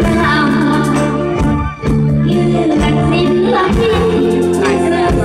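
A woman singing into a microphone over a loud amplified band with held bass notes and a steady beat, in the northeastern Thai (Isan) stage style. The band drops out for a moment just under two seconds in.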